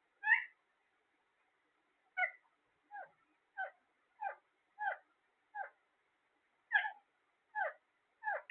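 A parrot giving about ten short, clipped calls, one at the start and then a steady run of one every half to three-quarters of a second from about two seconds in.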